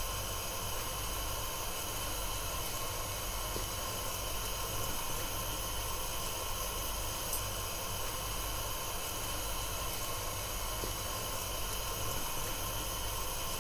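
Steady hiss from a frying pan of salmon and pineapple stew simmering on a gas stove.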